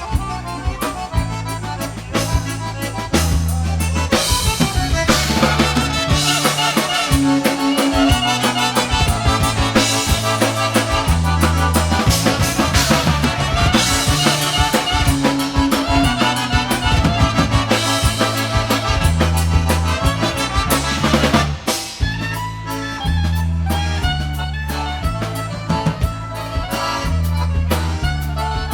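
Polish-style polka band playing an oberek, a lively dance tune in triple time, with accordion lead over drums and a stepping bass line. The full band comes in about three seconds in and drops back to a lighter texture around twenty-one seconds.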